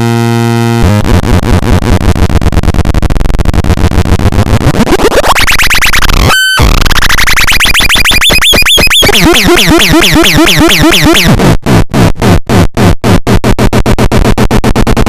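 Homemade noise-box optical theremin (a DIY synth whose oscillator pitch is set by a light-dependent resistor) playing harsh buzzing electronic tones. The pitch sweeps up and down and warbles rapidly under its LFO. There is a brief cutout about six seconds in and a choppy, stuttering stretch later on.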